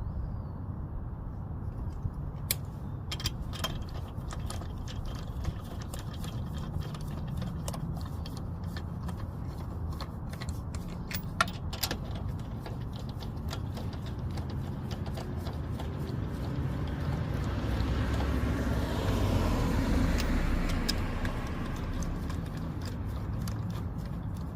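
Scattered sharp metallic clicks and clinks of tools and wheel hardware being handled while a front wheel is remounted, over a steady low rumble. The rumble swells about three quarters of the way through, then eases.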